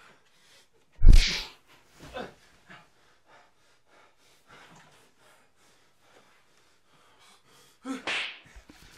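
A man's sudden, loud, breathy vocal outbursts: a very loud one about a second in, a smaller one a second later, and another near the end.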